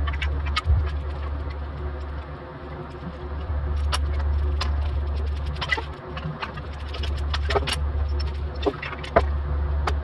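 Aluminum truck step knocking and clinking on a steel welding table as it is picked up, turned and set down, over a steady low machine hum.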